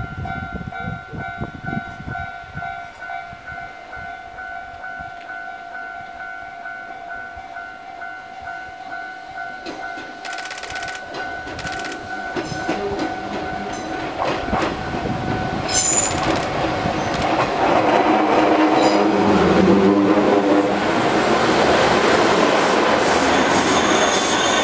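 Ex-Tokyu 7000 series stainless-steel electric train approaching and pulling into a station, its running noise on the rails building from the middle and loudest as the cars pass close. A steady ringing tone sounds through the first part and fades out about two-thirds of the way in.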